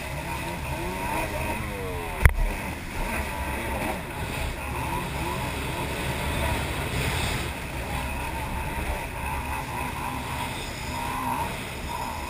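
Jet ski engine running under way, with rushing water and wind noise. One sharp thump about two seconds in.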